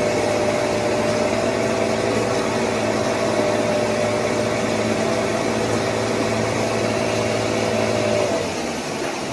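Fishing boat's engine running with a steady hum of several held tones over a rushing noise; the hum drops away about eight seconds in.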